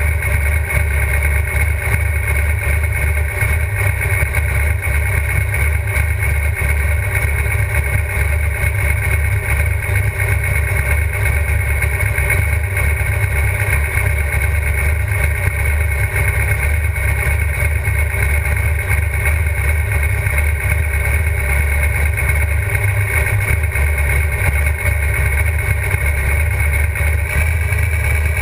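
GTO drag race car's engine idling steadily, heard from inside the cockpit, with no revving.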